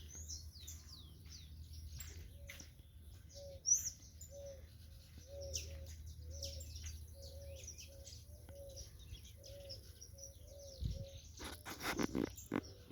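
Several birds chirping and singing with quick high calls and trills, while a lower note repeats steadily about twice a second. Near the end a few louder rustling knocks come in.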